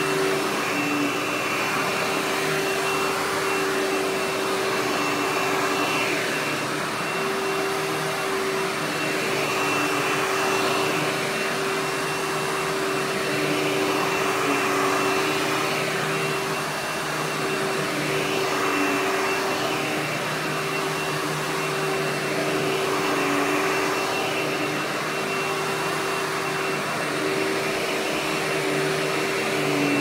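Hoover WindTunnel Bagless Anniversary Edition upright vacuum (U5786-900) with its 12-amp motor running steadily: a constant rushing hum with a thin high whine over it, swelling slightly every few seconds.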